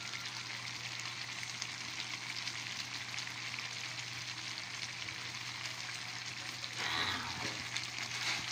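Wok of sardine and rice-noodle broth bubbling and sizzling on the stove, a steady crackling hiss over a low hum. About seven seconds in, a ladle starts stirring through the noodles.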